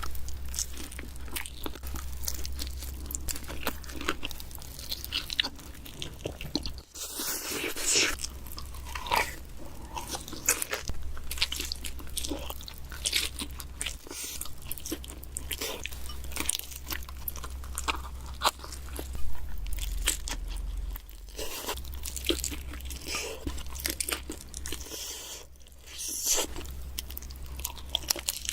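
Biting into and chewing pizza, miked close for ASMR: repeated crisp crunches of crust and wet chewing, bite after bite, over a steady low hum. The sound cuts briefly twice, at edits between bites.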